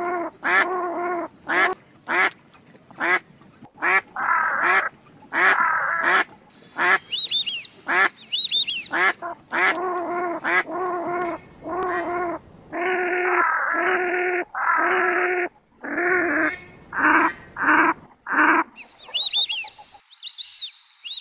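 Ducks quacking again and again in quick runs of separate quacks. A few high, thin, gliding calls sound briefly about a third of the way through and again near the end.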